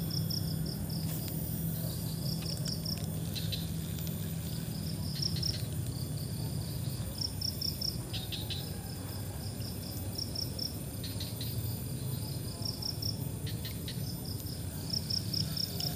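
Insect chirping: quick runs of about five high pulses, repeating every second or two, over a steady low rumble.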